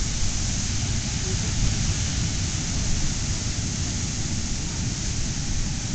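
Wind buffeting the microphone on a beach: a steady rushing noise with a flickering low rumble.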